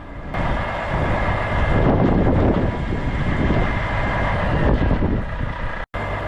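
Chainsaw mill's engine running steadily as it cuts through an oak log. The sound cuts out for an instant about six seconds in and then carries on.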